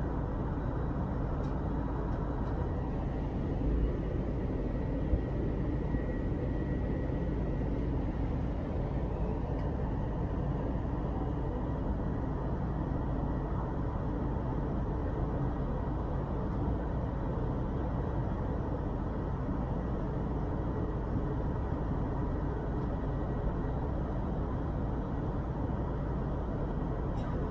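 Airbus A320 cabin noise in flight, heard from a window seat beside the underwing jet engine: a steady rush of engine and airflow noise with faint steady tones in it.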